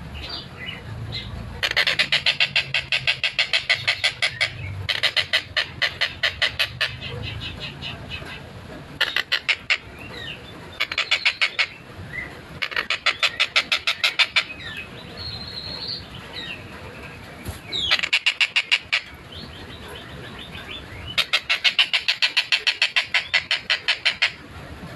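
Tengkek buto (collared kingfisher) calling in rapid, tightly spaced rattling series of sharp notes, about ten a second. About seven bursts of one to three seconds each, separated by short pauses.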